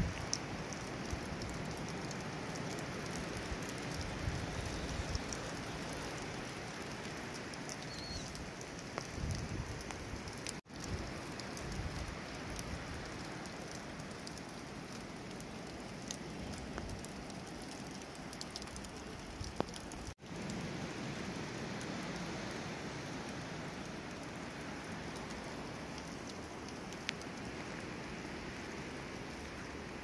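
Steady patter of rain dripping through trees, an even hiss of falling water with scattered sharper drop ticks. The sound cuts out for an instant twice, about a third and two thirds of the way through.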